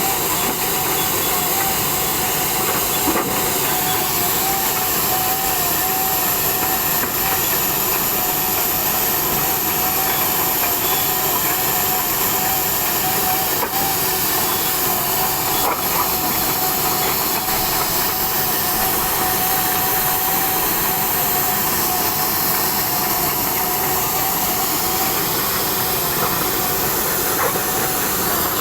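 Machine running with a steady hiss and one slightly wavering whine.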